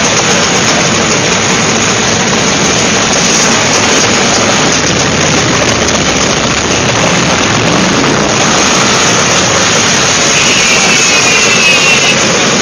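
Many classic Vespa scooter engines running together in one loud, continuous din, with one engine's pitch falling briefly near the end.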